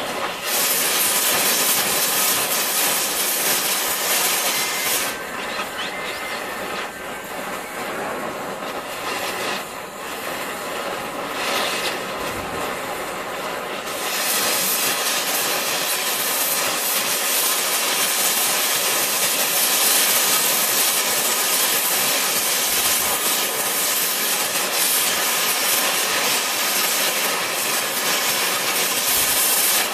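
MagneGas torch flame hissing steadily as it plays on a piece of tungsten. The high, rushing part of the hiss weakens for several seconds after about five seconds, then comes back stronger about halfway through.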